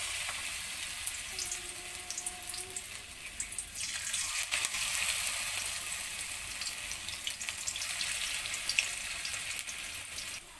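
Gram-flour-battered Malabar spinach (pui shak) pakoras sizzling and crackling in hot oil in a wok as they are dropped in one at a time; the sizzle grows louder about four seconds in as more pieces go in.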